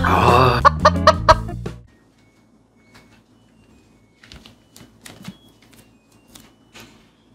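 A short music jingle with a clucking chicken sound effect that cuts off about two seconds in. It is followed by faint, scattered footsteps and light knocks of bare feet on a wooden floor.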